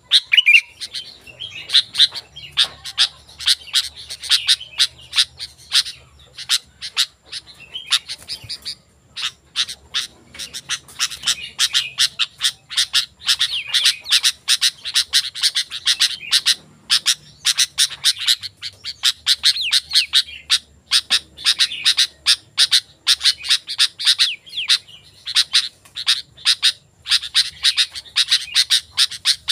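Sooty-headed bulbul (kutilang) calling lively and without let-up: a dense run of short, quick chirped notes with a few brief pauses.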